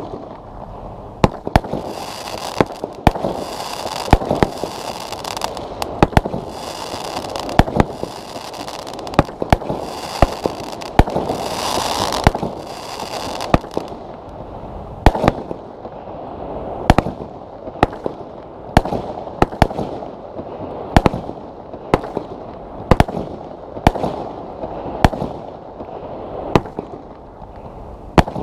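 25 mm firework cake firing shot after shot, a sharp bang about once a second. A steady hiss runs under the bangs until about halfway through, then stops, leaving each bang with a short trailing echo.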